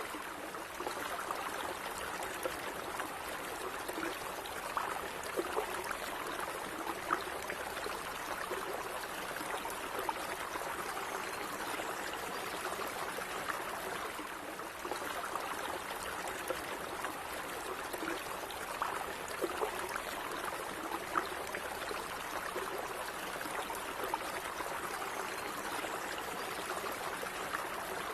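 A shallow stream running steadily, with small trickles and splashes flecking the flow.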